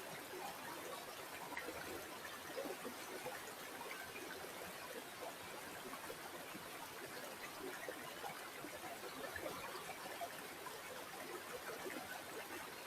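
River water flowing steadily, a quiet continuous babble of many small trickles and splashes over stones.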